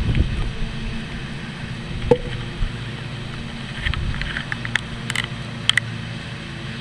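Wind rumbling on a camera microphone, steady and low, with a few light clicks and a single thump about two seconds in.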